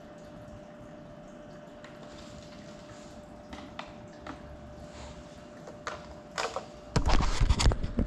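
Low steady hiss with a faint steady tone and a few light clicks. From about seven seconds in come loud bumps and rubbing as hands grab and handle the grounded FPV drone's camera.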